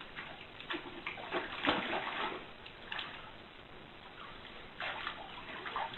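Water splashing and sloshing in irregular swishes.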